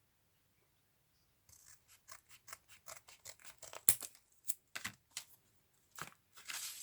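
Plastic craft-die packaging being handled and opened: an irregular run of sharp crackles and clicks that starts about a second and a half in, with the loudest snap about four seconds in.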